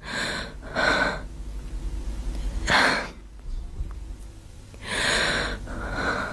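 A woman's distressed, gasping breaths, about five sharp intakes and outbreaths in six seconds, the strongest about three seconds in and again at five seconds.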